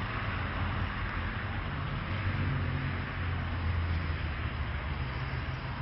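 An engine running steadily nearby: a low hum with a light noisy haze over it.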